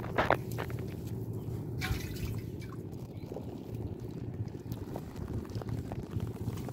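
Wet hands smoothing and patting soft wet mud, with small wet clicks and smacks. The loudest come just after the start, and a longer smack about two seconds in.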